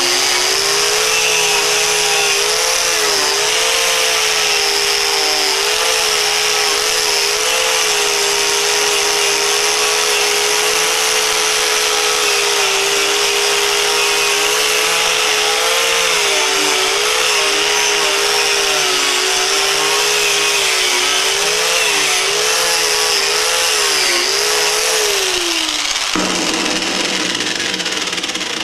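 Angle grinder with a wire cup brush running steadily and scrubbing rust and old paint off a rusty metal finial: a high motor whine whose pitch wavers as the brush is worked over the piece, under a loud hissing scratch of the wires. About 26 seconds in the whine drops in pitch and dies away.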